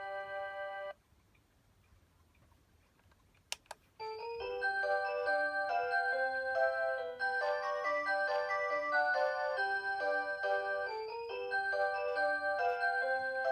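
Rhythm Aria Cantabile alarm clock's electronic 'Aurora Sound' chime melody playing, cutting off about a second in. After a short pause with two sharp clicks, the melody starts again about four seconds in and plays on.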